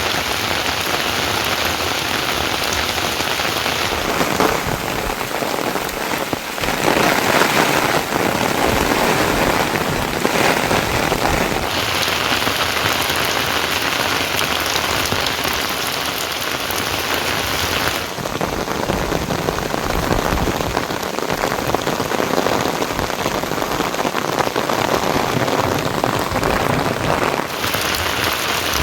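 Heavy rain falling, a dense steady hiss whose tone shifts abruptly several times.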